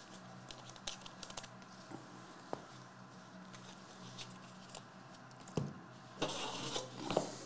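Faint scattered clicks, taps and rustling from handling small objects on a table, over a steady low electrical hum.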